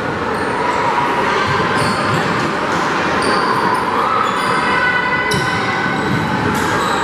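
Basketball game din in a school gym: a steady hubbub of spectator voices over players moving on the hardwood, with a basketball bouncing on the floor.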